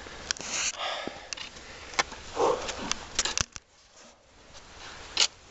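Footsteps crunching in snow mixed with rustling and clicking from the handheld camera, irregular, going quieter past the middle and ending on a sharp click.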